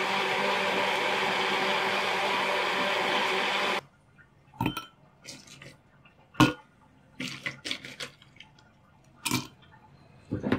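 Kenwood countertop blender running steadily while blending cooked raw mango with water, then switched off about four seconds in, stopping abruptly. After that, ice cubes are dropped into two glass goblets, giving a series of sharp clinks at uneven intervals; the loudest comes a little past the middle.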